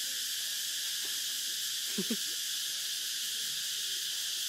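A steady hiss, with two short faint sounds close together about two seconds in.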